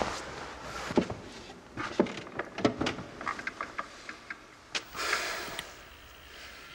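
Scattered sharp knocks and clicks, with a quick run of light ticks about three seconds in and a short hissing rush about five seconds in.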